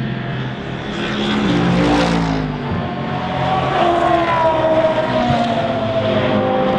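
Racing car engines at speed passing close by: the loudest pass peaks about two seconds in, its pitch falling as it goes away, and further engines follow with pitch rising and falling as they are driven hard.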